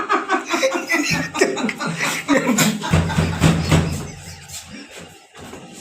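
People laughing and chuckling in quick bursts, dying down after about four seconds.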